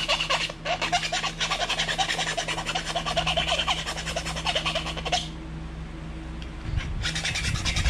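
Needle file rasping back and forth on a plastic rivet pin, about five quick strokes a second, pausing about five seconds in and then starting again near the end. The pin is being filed down because it won't quite fit through its mounting hole.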